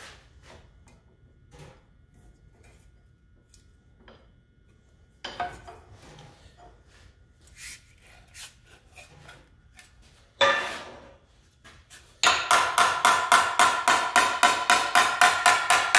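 Hammer striking a steel sheet-metal piece clamped in a bench vise, folding a lip over the jaw to form an end cap. Light handling clicks come first, then one loud metallic clang about ten seconds in. From about twelve seconds a steady run of ringing blows follows, three to four a second.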